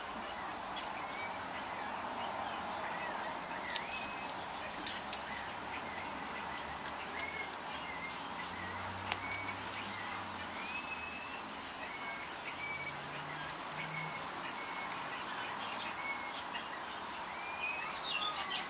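Animal eating dry kibble from a stainless steel bowl: a few scattered sharp crunches or clinks over a steady hiss, with many short high chirps throughout.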